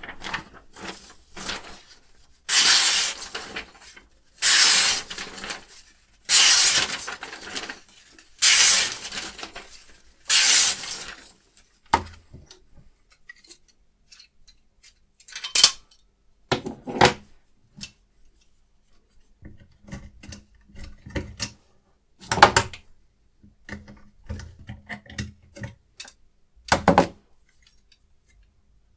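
Sharpening stone drawn along a knife blade in a guided sharpening system: five long scraping strokes about two seconds apart, then scattered clicks and knocks of metal parts being handled.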